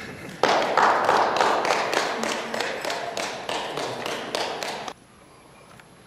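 Audience applause, many hands clapping, starting suddenly about half a second in and cutting off abruptly about five seconds in.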